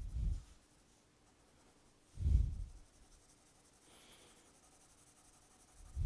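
Graphite pencil shading strokes on drawing paper: a short pass at the start and a louder one about two seconds in.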